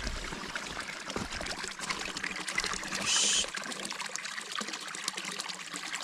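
Water running and trickling steadily into a small fish pool, with a brief higher hiss about three seconds in.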